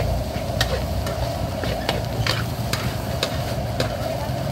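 Metal spatula scraping and clinking against a steel wok as rice is stir-fried over a steady sizzle. Sharp clinks come irregularly, about one every half second.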